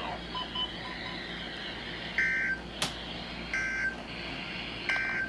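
Three short bursts of EAS digital header (SAME) data tones, the warbling two-tone burst used to close an emergency alert, spaced about a second and a half apart: the end-of-message signal. A sharp click falls between the first and second bursts.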